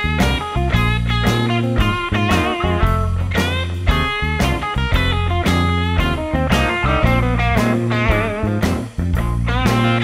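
Background music: an electric guitar lead with bending notes over a steady beat.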